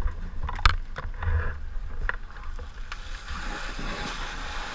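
Muffled rumble and a few knocks from firefighters working a burning house, with a steady rushing hiss rising about three seconds in.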